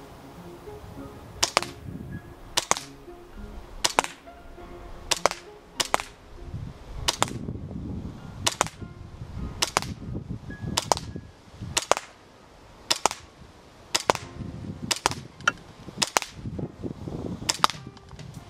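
Poseidon P19 Shadow gas blowback airsoft pistol firing about fifteen single shots, a sharp crack roughly once a second.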